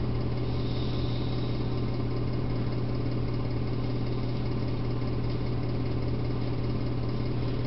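A steady low hum with a faint even hiss, unchanging throughout; no distinct event stands out.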